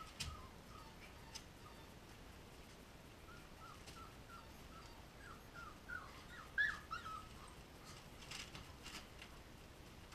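Young puppies whimpering: a run of short, high squeaks that come thick and fast from about three seconds in, loudest about six and a half seconds in, with a few crackles of the newspaper bedding under them.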